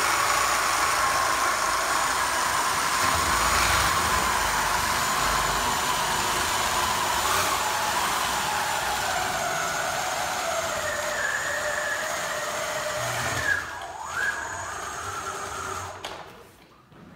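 Electric drive motors of a remote-control tracked aircraft tug whining steadily as it moves a Cub taildragger by its tailwheel. The whine sinks in pitch partway through, sweeps quickly down and back up about two thirds of the way in, then stops about a second before the end.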